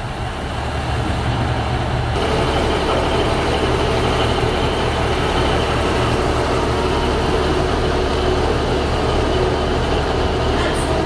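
Class 150 Sprinter diesel multiple unit standing with its underfloor Cummins diesel engines idling: a steady low hum with a few steady mid-pitched tones, getting louder over the first two seconds.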